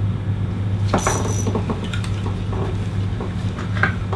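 Steady low hum with small clicks and rattles of fishing gear being handled, and a brief high-pitched squeak about a second in.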